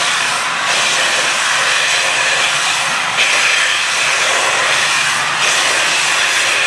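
Loud, steady hiss of steam escaping from the LNER A3 Pacific 60103 'Flying Scotsman' as it stands in the platform, with no exhaust beats, briefly dipping in the top a few times.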